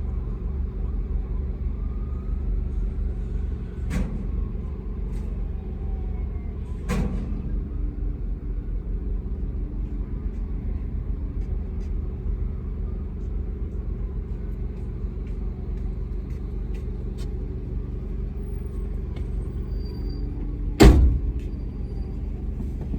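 A car's engine running steadily with a low rumble, with a few sharp clicks and knocks. Near the end comes one loud thump.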